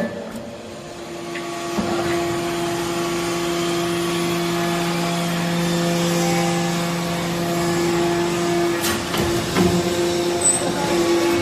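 Y83-4000 hydraulic briquetting press for aluminium chips running with a steady mechanical hum. One of its tones drops out after about nine seconds, and a few knocks follow near the end.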